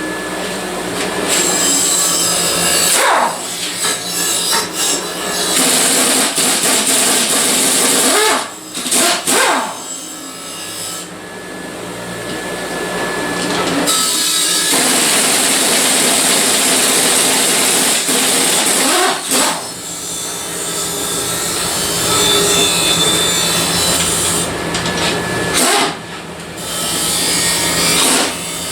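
Power tool abrading sheet metal, its motor running steadily under a harsh grinding noise. It works in long passes, with short breaks about three, eight, nineteen and twenty-six seconds in.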